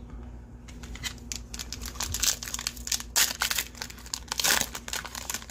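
Foil wrapper of a baseball card pack being torn open and crinkled by hand. The crackling starts about a second in and is densest and loudest from about three to four and a half seconds in.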